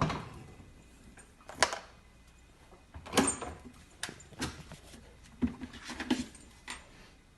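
A series of about eight irregular knocks and bumps, with quiet gaps between them.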